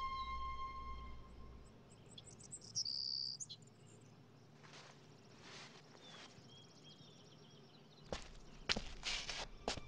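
Soft sustained music fades out in the first two seconds, leaving quiet outdoor ambience with faint high chirps. A few short, sharp noises come near the end.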